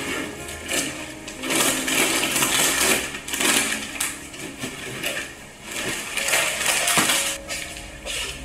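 Things being packed into an open suitcase: plastic snack bags crinkling and items knocking together in uneven bursts.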